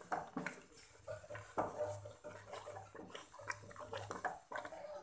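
Wooden spoon stirring thick mustard-greens saag in a large metal pot, making irregular scrapes and knocks against the pot as the saag is fried and mixed.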